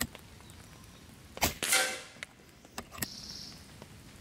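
Seneca Dragonfly MK2 multi-pump air rifle firing one pellet, a sharp crack about a second and a half in. A moment later the pellet hits the target downrange with a brief ring. A few lighter clicks come before and after.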